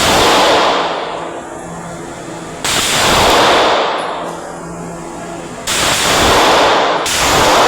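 Four gunshots about three seconds apart, the last two closer together near the end, each followed by a long echoing tail.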